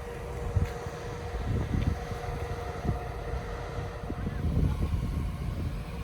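Vehicle engine running with a low, steady rumble and a thin, steady hum, a few soft knocks, and wind buffeting the microphone.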